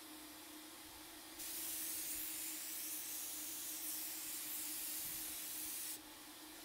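HVLP paint sprayer spraying paint: a loud, even hiss of air and atomised paint starts about a second and a half in and cuts off sharply about six seconds in, over a steady low hum that runs throughout.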